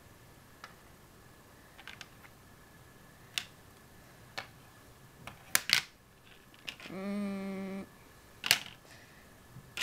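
LEGO plates and bricks clicking and clacking as brick-built puzzle tiles are picked up, set down and pressed onto a LEGO baseplate: scattered sharp clicks, the loudest about five and a half seconds in. Around seven seconds in, a short hummed "hmm" in a person's voice, under a second long.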